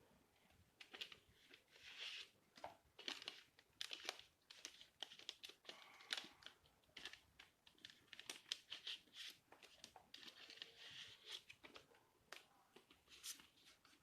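Faint crinkling and rustling with many light clicks and taps: board game cards and packaging being handled.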